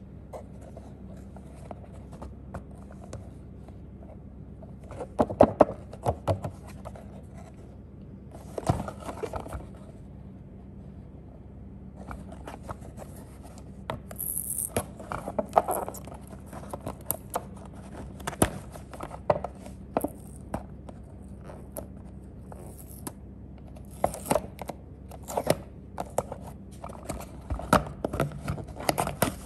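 Cardboard box of a die-cast model car being handled and opened by hand: scattered scrapes, taps and fingernail scratching at the box's sealed end, with a short tearing of the seal near the end.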